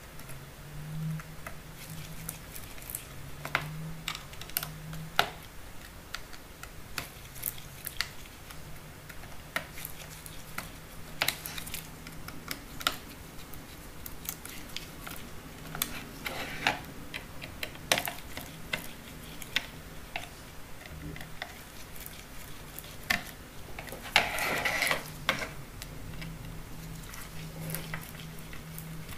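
Scattered small clicks and taps of gloved fingers handling and pressing on a smartphone's frame, with a longer rustling scrape near the end.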